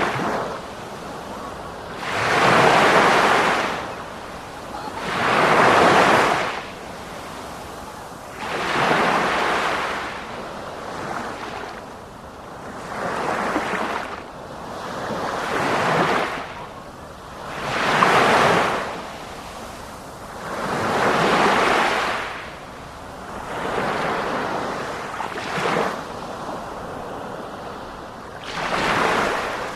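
Sea waves, each one rising and falling away, about one every three seconds.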